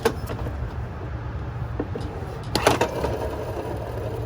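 2009 Honda Civic alternator spun by pulling its belt, giving a low rough growl with two short loud rattling bursts, one at the start and one about two and a half seconds in. The growl comes from the alternator's worn bearing, the cause of the growling noise the car came in with.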